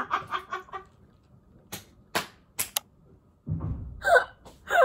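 A woman laughing hard: quick bursts of laughter trail off in the first second, a few sharp clicks fall in a short lull, and near the end she breaks into two high-pitched, squealing laughs that fall in pitch.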